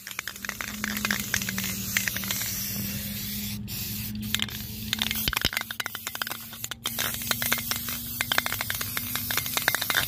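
Aerosol spray can of Rust-Oleum primer sealer hissing as it sprays in passes, with a crackly edge and a short break about two-thirds of the way in. A steady low hum runs underneath.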